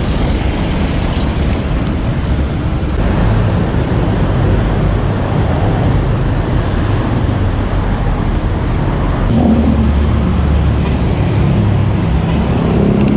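Steady rush of road traffic and wind noise heard from a moving bicycle, with cars passing close alongside.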